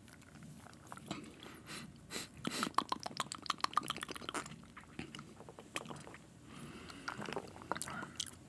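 A person sipping and swallowing a fizzy drink from a glass. A dense run of small wet mouth clicks and gulps comes from about two seconds in to about four and a half, with a few more near the end.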